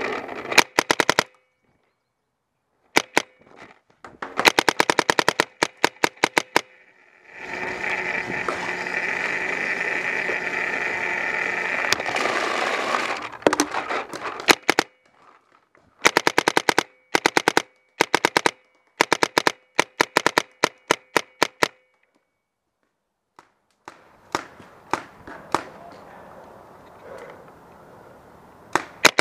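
Paintball markers firing rapid strings of shots, in bursts of about one to two seconds with short pauses between. For about six seconds in the middle a steady loud hiss runs under the shots.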